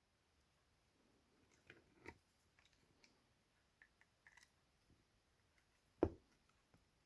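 Faint, scattered clicks and taps of small plastic model parts and tools being handled, with one sharper knock about six seconds in.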